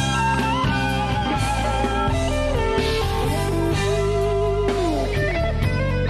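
Electric guitar playing a blues-rock lead line with bent and sliding notes over a bass and drum backing.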